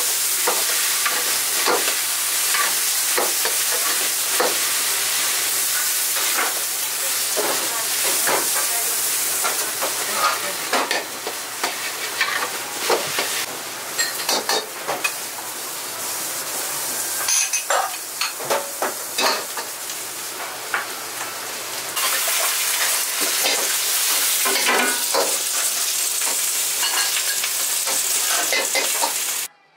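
Fried rice being stir-fried in a wok: a steady sizzle with frequent sharp clanks and scrapes of the metal ladle against the pan. The sizzle drops lower for a few seconds in the middle and cuts off just before the end.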